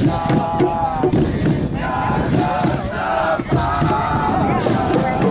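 Several voices chanting and calling out together, with drumming and percussion underneath.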